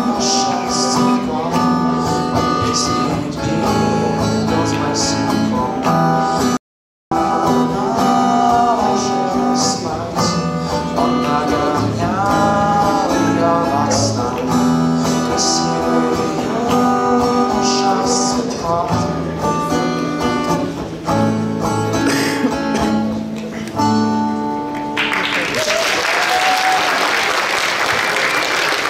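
A man sings to his own acoustic guitar. The sound cuts out completely for a split second about seven seconds in. Near the end the song stops and the audience applauds.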